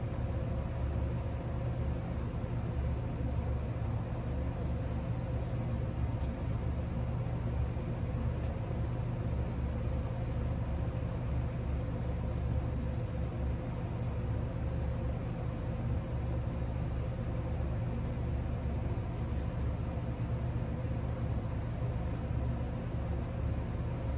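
Steady low mechanical hum with a faint steady higher tone over it, unchanging throughout.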